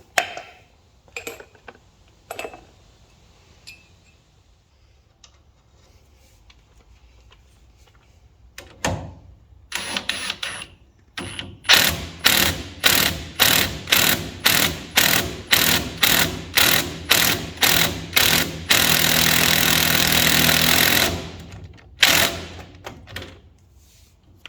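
Metal tool work on a Ford Model T's rear axle assembly. First a run of regular, sharp strokes, about two a second for some seven seconds. Then a continuous rattling run of about two seconds, and two more strokes after it.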